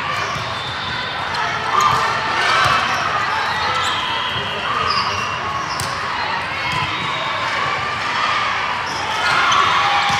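Busy indoor volleyball hall: many overlapping voices echoing, with balls being struck and bouncing on the court in occasional sharp smacks, the loudest about two seconds in.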